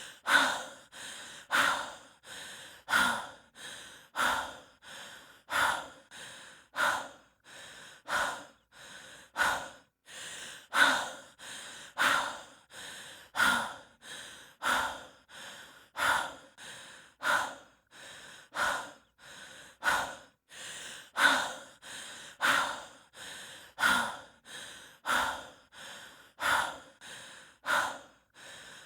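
A person breathing heavily and rhythmically, as from the exertion of hiking, about three breaths every four seconds.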